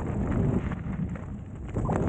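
Wind buffeting the microphone over the rumble and rattle of an electric mountain bike riding a rocky dirt trail, with scattered clicks from stones under the tyres.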